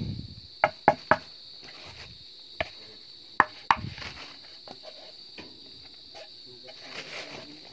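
A handful of sharp knocks and taps from the level 3A ballistic vest's armour panel being handled and tapped by hand, bunched in the first four seconds. A steady high insect chirring runs underneath.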